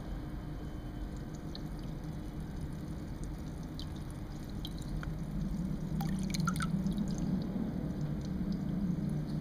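Small drips and splashes of aquarium water, scattered, with a cluster of sharp drips about six seconds in, over a steady low hum.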